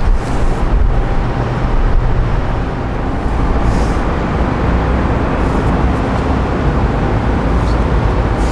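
Steady low outdoor rumble of wind on the microphone mixed with city traffic noise.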